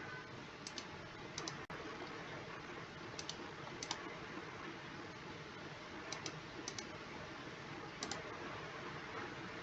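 Faint, sharp double clicks, about seven of them at irregular intervals, over a steady hiss.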